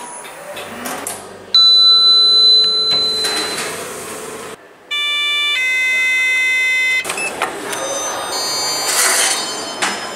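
Two lift arrival chimes. The first is a single bell-like ding about a second and a half in that rings out over two seconds. The second is an electronic chime tone about five seconds in, held steady for two seconds before stopping abruptly, followed by a rushing noise as the lift doors open.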